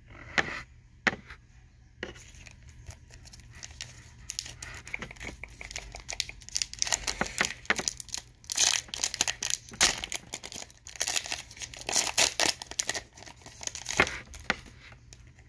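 Silver foil trading card pack being torn open and crinkled by hand: a few scattered clicks at first, then dense, irregular crackling and tearing from about two seconds in.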